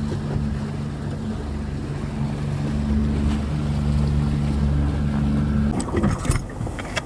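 Motorboat engine running with a steady low drone that shifts pitch slightly about three seconds in. Close to six seconds in it cuts to wind buffeting the microphone on open water.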